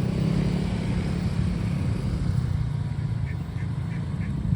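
Motor vehicle engines running with a steady low hum. Near the end a faint high tone repeats about three times a second.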